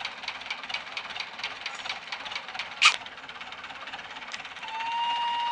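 Tractor engine running with a regular clatter of about five or six beats a second while it hauls a houseboat trailer up the shore, fading out a little under three seconds in. A single loud, sharp knock comes just before the three-second mark. Near the end a steady high-pitched tone starts and holds.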